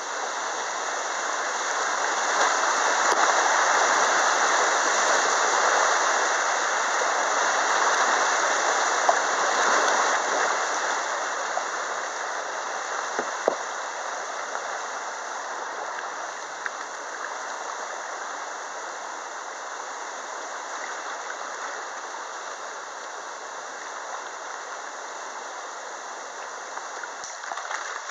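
Whitewater rushing over rocks in a small river rapid, close to the boat. It is loudest in the first third and then eases to a softer riffle, with a couple of brief knocks along the way.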